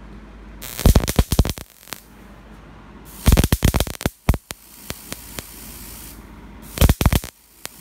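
High-voltage spark gap arcing over in three short bursts of sharp, rapid cracks, about three seconds apart, with a steady hiss between them. The gap has been widened so that it fires and then stops, rather than sparking continuously.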